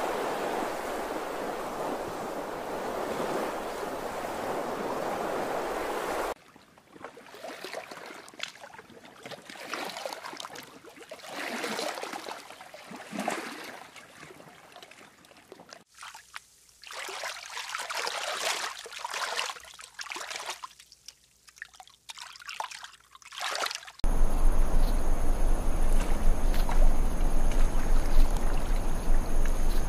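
Water ambience: a steady wash of lake surf, then from about six seconds in irregular lapping and sloshing water. About 24 seconds in it cuts to a louder, steady rush of water with a low rumble and a faint high whine.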